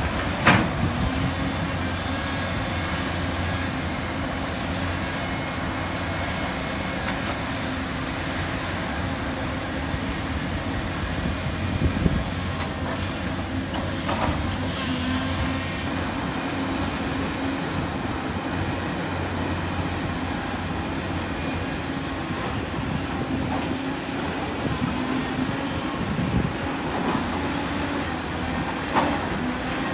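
Volvo EC350 excavator's diesel engine and hydraulics running steadily under load while it digs and loads dirt, with a few short sharp knocks, the loudest about half a second in.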